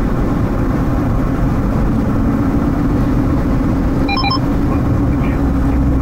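Steady vehicle engine and road noise from driving on a snow-covered highway behind a snowplow, with a constant low hum. About four seconds in come two quick electronic beeps.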